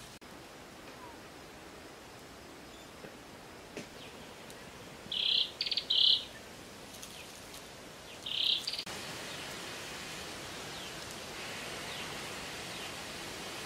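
A wild bird calling: three short, harsh calls, two close together about five seconds in and a third about three seconds later, over a quiet outdoor background that becomes a slightly louder steady hiss after about nine seconds.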